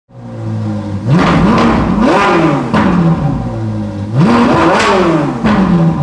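Ferrari 458 Italia's 4.5-litre V8, through a Capristo exhaust, idling and then revved hard in two bursts, about a second in and about four seconds in, each time climbing quickly and falling back to idle.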